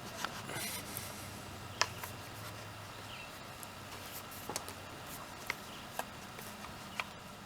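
Scattered light clicks and taps, about half a dozen, over a faint steady hum, as hydrofoil fins are handled and lined up against an outboard motor's lower unit.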